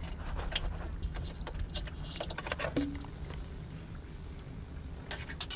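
Scattered light clicks and taps of hands working plastic solar-module cable connectors and a cable guard on a metal module frame, bunched about two seconds in and again near the end, over a steady low rumble.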